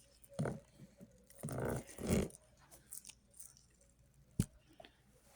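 Plastic handling noises from a vacuum cleaner's dusting-brush attachment being twisted off: a short knock, a longer scraping rub about a second and a half in, and a sharp click near the end. The vacuum's motor is not running.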